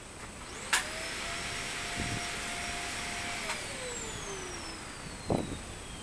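A passing motor vehicle: a whining engine note fades in, holds steady for a few seconds, then drops in pitch as it goes by. A few sharp clicks and knocks sound over it.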